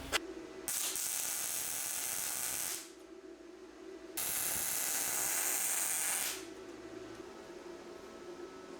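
Two steady hissing bursts of about two seconds each, a little over a second apart.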